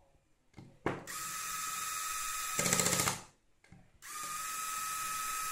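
Corded electric screwdriver with a ratchet (slip) clutch driving a screw: a steady motor whine, then rapid clicking as the clutch slips once the screw is tight. The sound stops about three seconds in when the trigger is released. A second screw is driven from about four seconds in, the motor whining steadily again.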